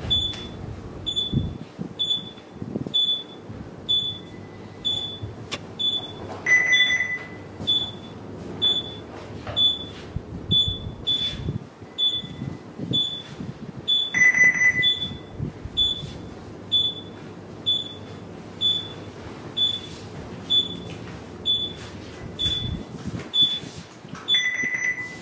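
Ship's bridge console alarm beeping steadily, a short high beep about every three-quarters of a second, with a longer, lower beep sounding three times.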